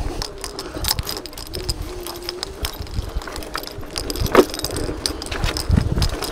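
Electric scooter ridden over a rough path, with its frame and the padlock hanging from the handlebar stem rattling and jangling in many small knocks. A faint wavering whine runs for the first two seconds or so, and one sharper knock comes about four seconds in.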